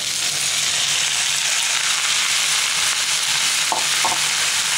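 Oil sizzling in a frying pan as a heap of chopped gongura (sorrel) leaves is tipped onto frying potatoes. The sizzle grows louder as the wet leaves hit the hot oil.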